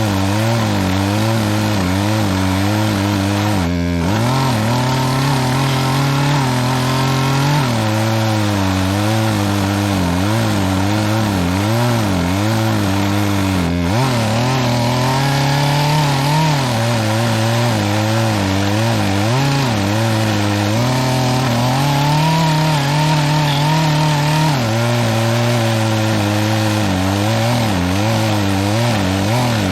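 Gas chainsaw running at high throttle while cutting through a pine trunk, its engine pitch wavering as it loads and frees up in the cut, with two short breaks. The owner admits the chain could have been sharper.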